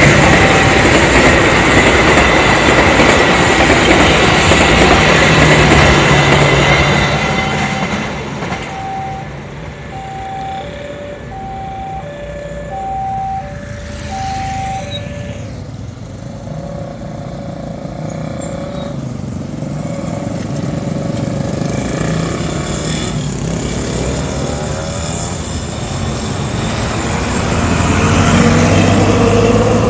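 A passenger train's coaches roll past loudly for the first seven seconds. As their noise fades, a level-crossing alarm alternates between two tones for several seconds. Near the end a coach bus drives past with its diesel engine running, the loudest thing in the later part.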